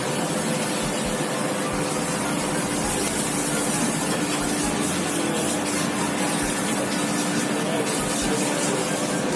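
Steady rushing kitchen background noise with a faint, even hum underneath.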